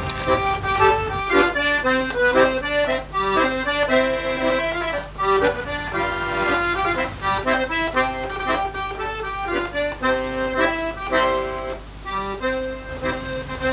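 Accordion music playing a quick melody over held chords.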